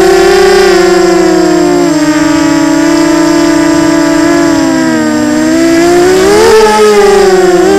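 Small FPV quadcopter's brushless motors and propellers whining, heard close up from the onboard camera; the pitch wavers with the throttle, dips about five seconds in and climbs sharply near the end.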